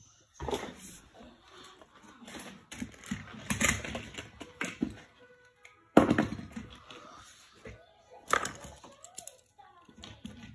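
A run of sharp knocks and rustles, loudest about half a second in and again about six seconds in, from a phone being handled and brushed against clothing and plastic toy track pieces. Faint voices run underneath.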